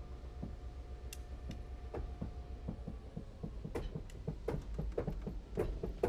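C&O 1309, a 2-6-6-2 Mallet steam locomotive, rolling slowly while not under steam: a low rumble with its rods and running gear clanking and knocking. The knocks come faster and louder in the second half.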